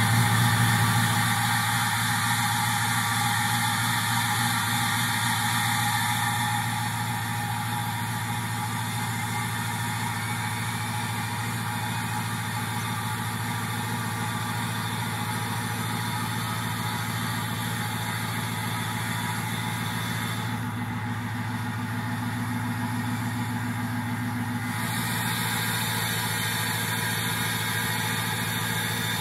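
Ford 6.0 Powerstroke V8 turbodiesel idling just after a cold start in below-freezing weather, the engine not plugged in and unrun for several days. It is louder for the first several seconds, then settles to a steady, quieter idle about six seconds in.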